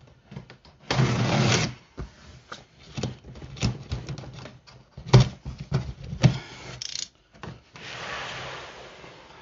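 Large cardboard box being handled and opened: cardboard rubbing and scraping about a second in and again near the end, with scattered knocks and taps between, the loudest about five seconds in.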